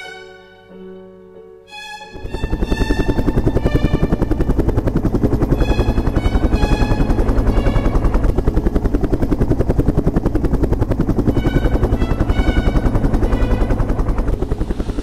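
Light helicopter's rotor beating rapidly and steadily, coming in loud about two seconds in over music with violin notes.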